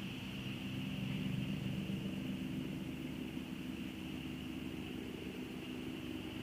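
A distant engine droning steadily, a little louder from about one to three seconds in, over a constant hiss of rain on the camera.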